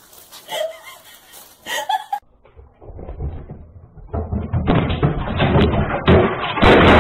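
A flat-screen TV knocked over by a cat, crashing down onto its stand, heard through a security camera's muffled microphone. It is a loud, rough crash and clatter that starts about four and a half seconds in and is loudest around six seconds.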